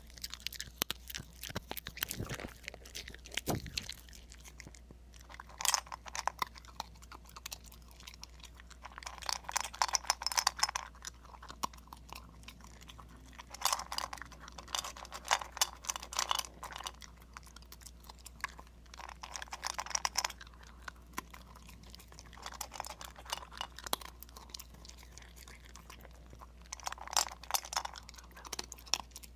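A black-and-tan Shiba Inu eating from a bowl, crunching and chewing its food in bursts of one to three seconds with short pauses between.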